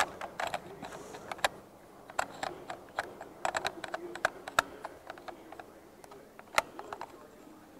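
Irregular small clicks and taps of a Canon T6i DSLR body and its adapter parts being handled and fitted together, a few sharper clicks standing out.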